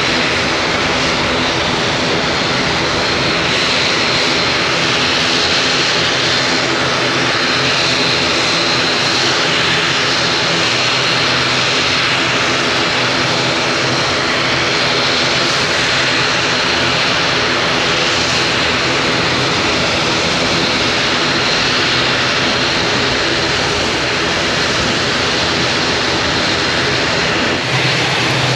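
Twin-turboprop ATR airliner taxiing: a steady, loud propeller drone with a thin high turbine whine over it.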